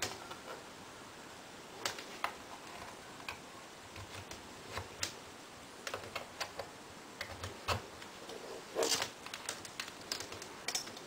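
Irregular light plastic clicks and taps as a clamp multimeter's test leads are handled, their plugs pushed into and pulled from the meter's jacks. There is a louder run of clicks about nine seconds in.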